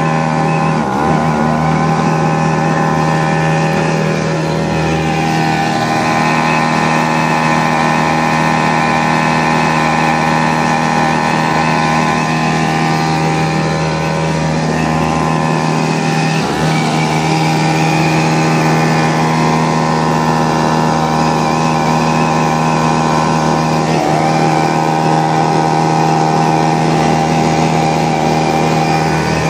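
Hangkai 3.5 hp gasoline outboard motor running steadily at cruising throttle, driving a pedal boat along. Its pitch wavers briefly a few times.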